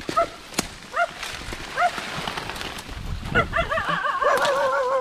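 An animal's high whining cry: a few short rising yelps, then from about three seconds in a long, wavering whine.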